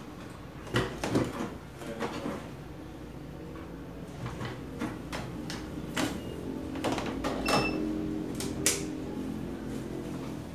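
Irregular light clicks and knocks, a dozen or so, from small hard objects being handled, with two brief faint high beeps about seven and a half seconds in.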